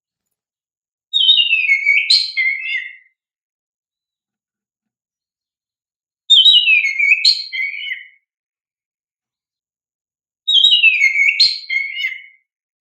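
Oriental magpie-robin (kacer) singing a loud whistled song phrase, three times about four seconds apart, with silence between. Each phrase opens with a note sliding down, then breaks into quick sharp notes.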